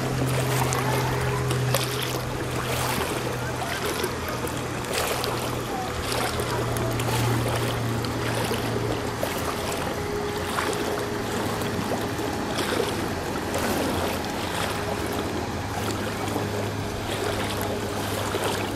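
An engine running steadily while the vehicle moves through floodwater, with continuous splashing and sloshing of water.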